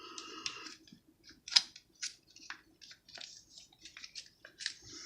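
MRE foil retort pouch crinkling and rustling in the hands as the food is squeezed out of it. A short rustle at the start, then scattered small clicks and crackles.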